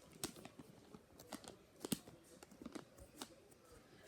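A foam squishy being squeezed in the hand, with faint, irregular crinkles and small crackles.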